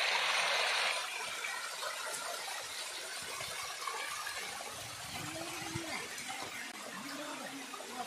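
Waterfall: a steady rush of falling water, a little louder in the first second.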